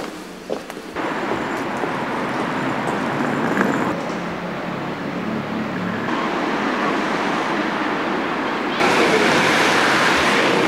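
Road traffic noise on a busy city street: a steady rush of passing cars that jumps in level abruptly a few times and is loudest near the end.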